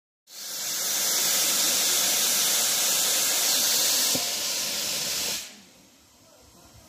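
Narrow-gauge steam locomotive venting steam: a loud, steady hiss that starts suddenly and cuts off abruptly about five and a half seconds in.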